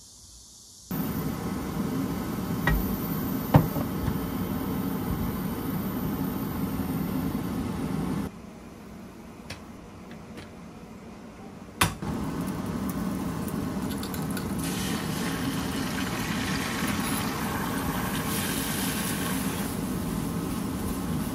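Food cooking in a frying pan with a steady sizzle. It cuts in abruptly about a second in, drops out for a few seconds around the middle with a few light clinks and a sharp knock, then sizzles again for the rest, growing brighter toward the end as eggs scramble in the pan.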